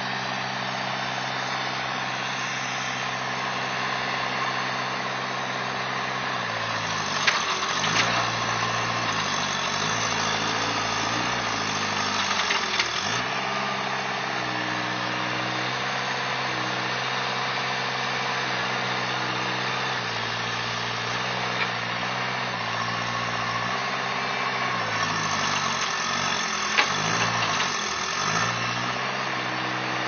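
New Holland skid-steer loader's engine running as the machine sits stuck in mud. Its note sags and picks back up three times as the machine is worked, with a few sharp knocks around those moments.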